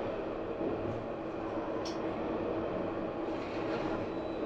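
Tram running on its rails: a steady motor hum over rolling rail noise, with a faint tick about two seconds in.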